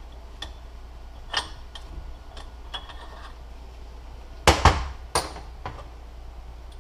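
Metal transfer case parts and hand tools clinking and knocking as the case is taken apart: scattered light clicks with a brief ring, then two louder sharp knocks about four and a half and five seconds in.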